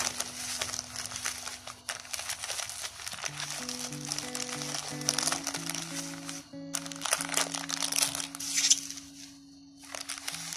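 Plastic wrapping and bubble wrap crinkling in the hands as a packaged jewellery set is handled, pausing briefly near the end. Background music of soft held notes plays underneath.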